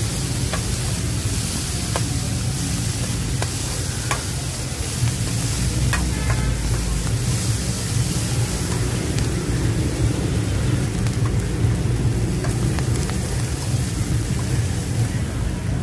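Buttered corn kernels sizzling in a steel wok while a metal spatula stirs and tosses them, scraping and clinking against the pan every second or so, over a steady low rumble.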